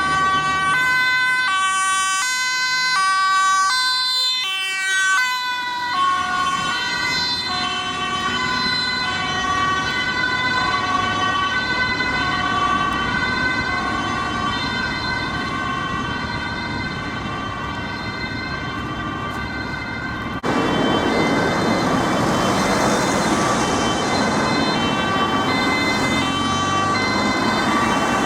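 Emergency-vehicle two-tone siren alternating steadily between a high and a low note. About two-thirds of the way in it cuts abruptly to another two-tone siren with more road and engine noise underneath.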